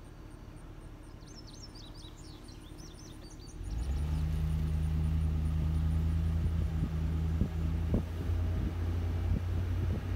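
Car running, quiet at first, with a bird chirping a few times over the low rumble; about four seconds in the engine and road noise jump up to a steady low hum as the car drives on.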